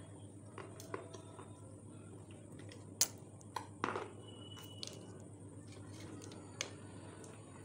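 Scattered sharp clicks and taps, the loudest about three seconds in with a short crunchy cluster just before four, as a stick works through small white chunks in a bowl. A steady background hum and hiss run underneath.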